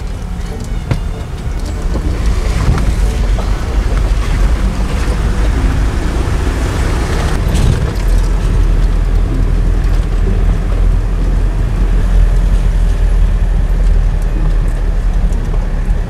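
Vehicle running up a steep mountain road, heard from on board: steady engine and road noise with a heavy low rumble that grows heavier about halfway through.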